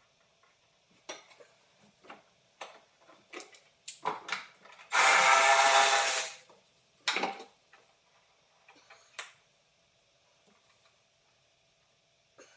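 A power tool, such as a drill or driver, runs for about a second and a half near the middle, among scattered clinks and knocks of tools and metal parts being handled.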